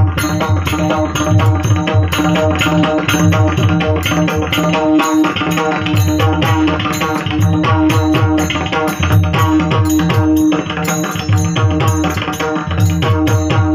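Instrumental kirtan accompaniment: a hand drum played in a fast, driving rhythm over a steady held tone, with no singing.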